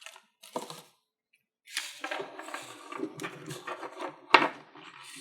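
Hands handling the doorbell camera and its AA batteries: hard plastic rattling and rubbing, with one sharp click about four and a half seconds in.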